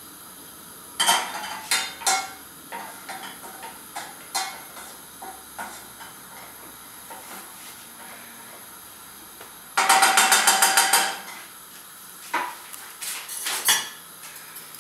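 A utensil knocking and scraping against a metal saucepan as butter is stirred while it melts, with scattered clinks and, around ten seconds in, a quick clatter of about ten rapid strokes.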